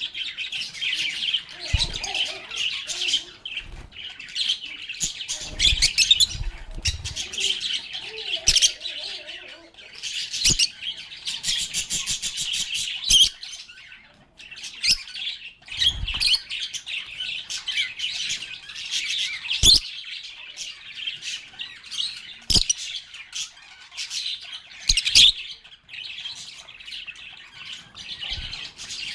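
Lovebirds chirping and chattering in a continuous, overlapping flurry of high, shrill calls, with a quick rattling trill a little before the middle. Scattered short knocks sound through it.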